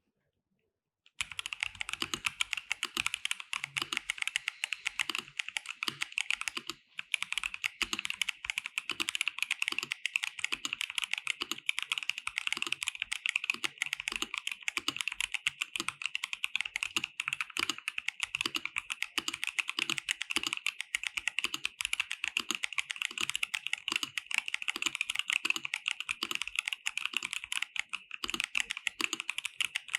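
Fast, continuous typing on a KBD67 Lite R3 mechanical keyboard fitted with Gazzew Boba U4T 62g tactile switches and PBT double-shot keycaps. It starts about a second in and breaks off briefly near seven seconds.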